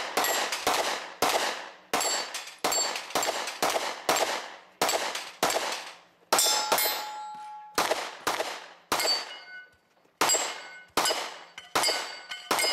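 Pistol-caliber carbine fired rapidly, about two shots a second with a couple of brief pauses, at steel targets that ring with a metallic clang when hit.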